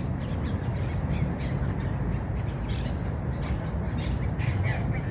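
Birds calling with short, harsh squawks, several a second, over a steady low rumble.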